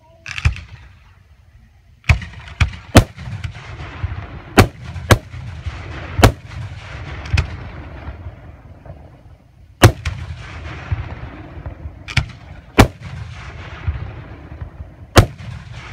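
Aerial fireworks shells bursting with about a dozen sharp bangs at irregular spacing. A crackle and low rumble fill the gaps between them.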